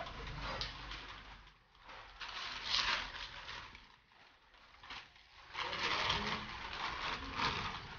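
Bags being unloaded from a loaded touring bicycle: fabric rustling and scraping with small clicks from buckles and straps, in irregular bursts with short pauses between, the busiest stretch in the second half.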